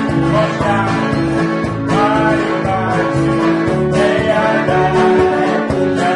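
Country or bluegrass music: acoustic guitar and banjo picking along with a steady beat.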